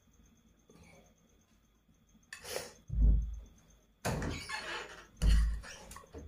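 A plastic spoon scooping and dropping chicken filling onto pizza dough in a metal baking tray: short scrapes and clatters, with two dull, low thumps about three and five seconds in.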